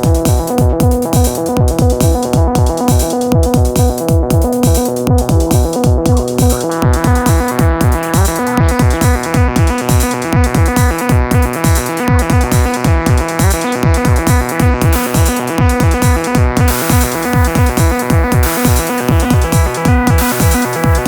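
Live techno played on a Roland TR-8S drum machine and a Neutron analog synthesizer: a steady, driving kick-drum pulse under held synth tones. About seven seconds in, a brighter synth layer opens up, and later a hissy high layer joins.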